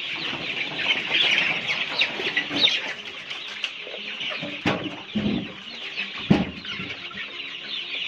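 A large flock of young Golden Misri chickens, about 38 days old, calling together in a dense chorus of high cheeps and clucks. A few louder, lower short sounds stand out a little past halfway.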